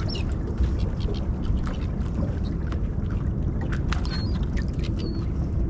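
Water lapping and splashing against a small fishing boat's hull over a steady low rumble, with scattered short clicks and splashes.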